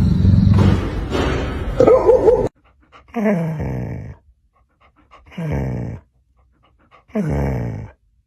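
A dog vocalising: after a loud, noisy stretch that cuts off abruptly, three drawn-out whining groans, each falling in pitch and under a second long, come about two seconds apart.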